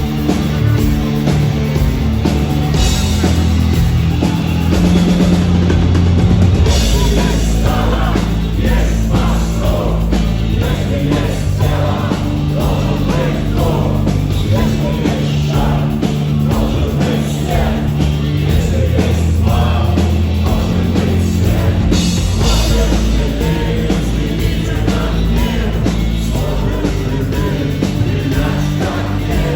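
Rock band playing live, with singing over loud, steady band music.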